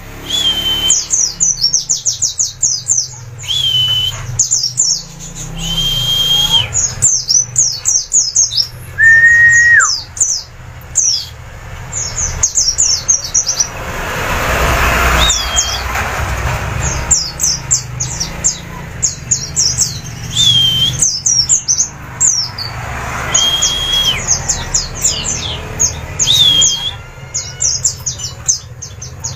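Songbirds singing: bursts of rapid, short, high notes, each sweeping downward, alternating with repeated drawn-out level whistles that drop at the end.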